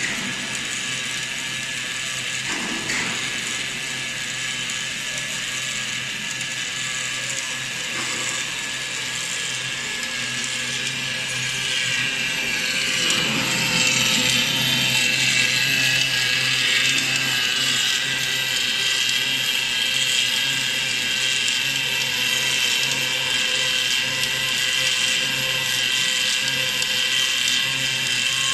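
Automatic MIG deep-groove welding machine working on a hydraulic cylinder rod: the steady hiss of the welding arc over a low hum, getting louder a little under halfway through.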